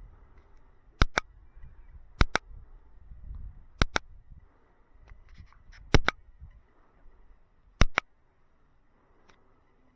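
Five sharp double clicks, each a pair of quick hard taps, coming about every one and a half to two seconds over a faint outdoor background.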